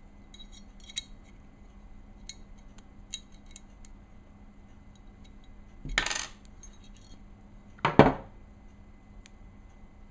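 Small steel Glock slide parts clicking and clinking as they are handled and set down on a hard surface, with a louder rattle about six seconds in and a sharp knock about eight seconds in.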